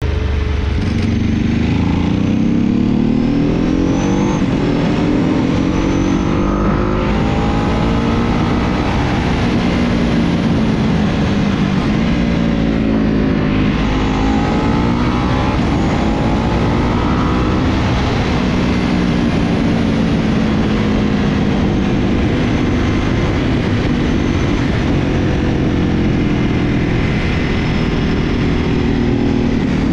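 Ducati sportbike engine heard from on board at track pace, its note climbing again and again as it pulls up through the gears, then dropping and rising again through braking and corners. A steady rush of wind noise runs underneath.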